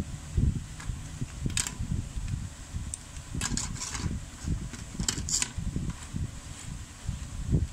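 Short plastic clicks and scrapes as a feature phone's back cover is pried off and its battery lifted out, in three small clusters, over a steady low rumble.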